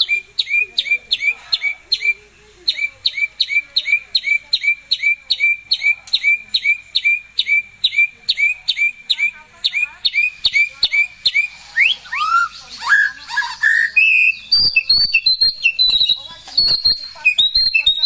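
White-rumped shama (murai batu) singing loudly: a long run of quick, evenly repeated notes, about three a second. About two-thirds of the way through it breaks into varied, rapid phrases with sharp clicks and high notes.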